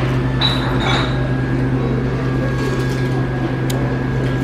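Steady low hum of a restaurant dining room, with a few faint clinks and one sharp click near the end.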